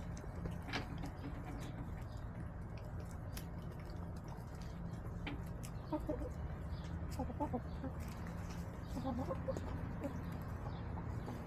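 Backyard hens feeding, clucking softly in short runs, with small ticks of beaks pecking at food scraps on the ground. A steady low hum runs underneath.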